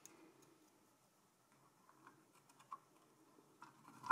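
Faint scattered clicks and taps of a RAM module being handled and lined up in a motherboard memory slot, with a sharper click right at the end as it is pressed in.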